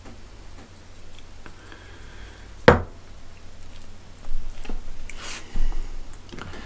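A glass spice jar set down on a wooden chopping board with one sharp knock nearly three seconds in, then hands rubbing and patting a dry salt-and-pepper rub onto a rack of raw beef short ribs, a soft scratchy rustling in the second half.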